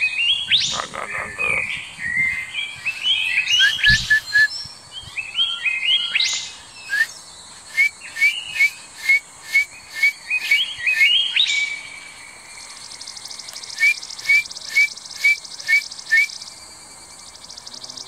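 Kaka parrot calling with a mix of whistles and chirps, followed by runs of short, evenly spaced whistled notes about two a second. A faint high buzz sits underneath in the last third.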